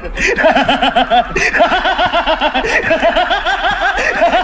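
Men laughing together in a long, rapid, rhythmic run of 'ha-ha-ha', a villain's mocking laugh.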